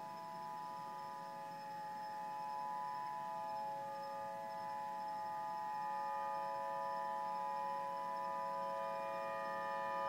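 Tsunami warning siren sounding a steady, unwavering tone made of several pitches at once, the alert for an approaching tsunami. It grows slightly louder near the end.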